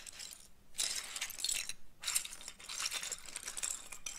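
Loose plastic building bricks clattering and clinking as hands stir and sweep through a heap of them, with two brief pauses, about half a second in and just before two seconds in.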